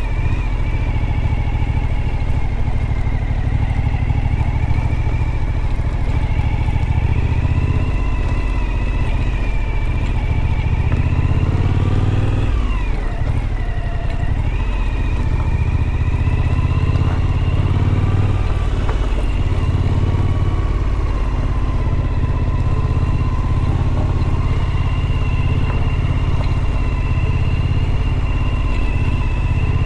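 Suzuki V-Strom motorcycle engine running steadily at low speed, easing off about twelve seconds in and picking up again a couple of seconds later.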